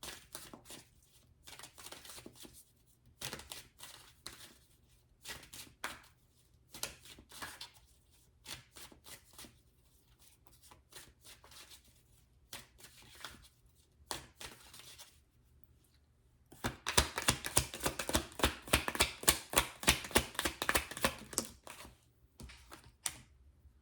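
Tarot cards being handled and shuffled by hand: scattered soft card rustles and taps, then a dense run of rapid card flicks lasting about four seconds near the end.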